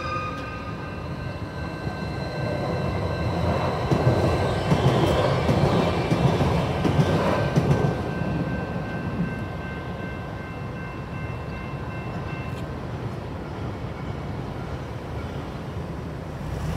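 Metrolink light-rail train passing through the grade crossing, its rumble swelling to its loudest about four to eight seconds in and then fading. Steady ringing from the crossing signal runs underneath and stops about twelve seconds in, before the gates lift.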